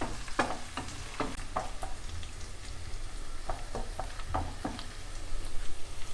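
Onions and ginger-garlic paste frying in a pan with a steady sizzle, stirred with a spatula that scrapes and knocks against the pan in quick strokes, in two runs of stirring.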